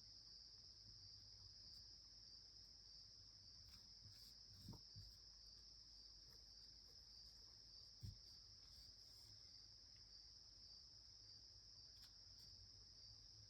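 Faint, steady, high-pitched insect chorus, with two soft thumps about five and eight seconds in.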